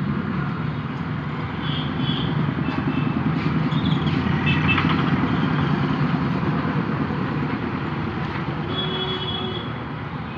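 Road traffic with a motor vehicle engine running, growing louder toward the middle and fading near the end as it passes.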